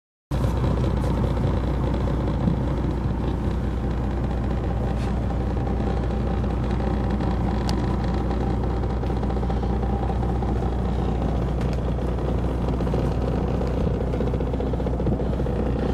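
Boat engine running steadily at idle, an even low hum with a few faint knocks over it.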